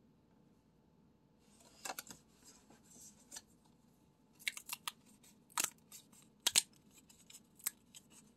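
Cardboard pull-tab lottery ticket being handled and its perforated tabs torn open by hand. A soft paper rustle comes first, then several sharp snaps in the second half as the tabs are pulled back.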